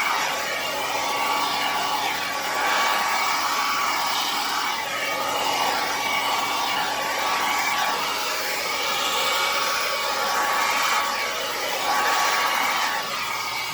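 Handheld hair dryer running, a steady rushing blow with a constant whine. Its airflow wavers as it is moved about over wet paint.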